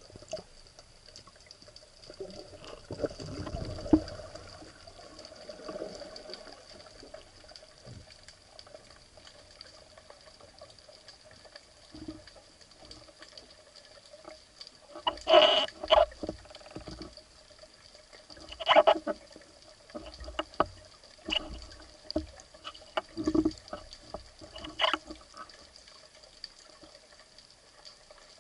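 Underwater sound through a camera housing on a speargun during a breath-hold dive: low water noise with a faint steady hum, a rumble a few seconds in, and scattered sharp clicks and knocks, the loudest a cluster a little past halfway.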